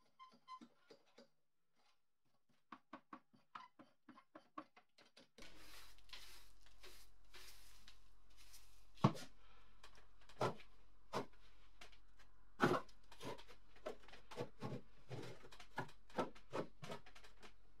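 Hand tools working caked dirt and rust off an old metal paper guillotine: a run of light scrapes and clicks from a screwdriver picking at the crust, then, over a steady low hum, brushing and scraping broken by sharp knocks of crust and metal.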